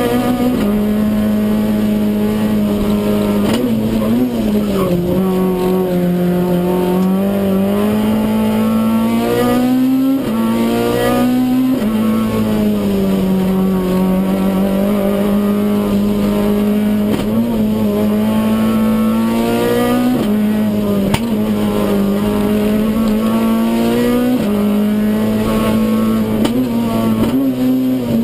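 Renault Clio Kit Car's four-cylinder engine heard from inside the cabin, driven hard. The revs rise and fall over and over, dropping sharply at each gear change or lift for a corner.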